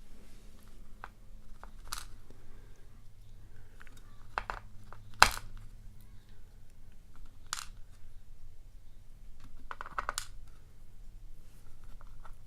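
Small sharp metal clicks and taps, scattered and irregular, from handling a padlock's pins, springs and tools on a pinning board while it is taken apart.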